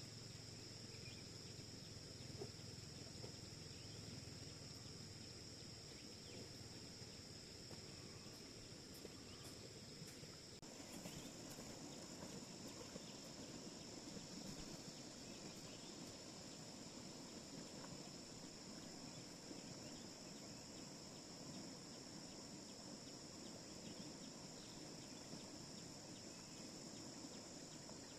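Faint, steady chorus of insects, likely crickets, holding two high continuous tones, with a soft low background rustle; the mix shifts abruptly about ten seconds in.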